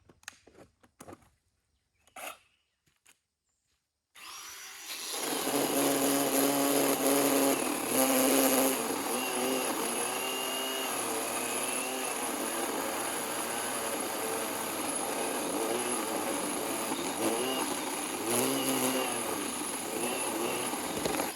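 SORAKO 20-volt cordless electric chainsaw (10-inch bar) cutting through a pine trunk. A few faint clicks, then the motor spins up suddenly about four seconds in and runs under load, its pitch dipping and recovering as the chain bites into the wood, until it stops at the very end.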